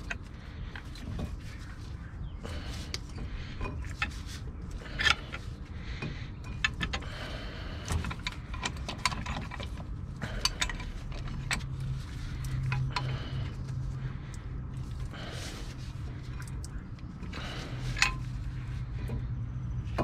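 Large C-clamp being worked back and forth to push the pistons back into an old two-piston front brake caliper on a 2001 Chevy Tahoe: irregular metallic clicks and clanks as the stiff pistons go in hard. A steady low hum comes in about halfway through.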